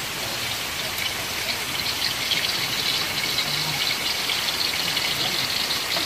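Hot oil crackling and sizzling in a wok on a portable gas stove, steady and rain-like, a little stronger after the first second or so.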